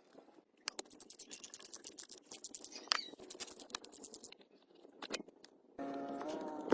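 Rapid scraping strokes, about ten a second, for several seconds. Near the end a steady hum with a few stacked tones starts.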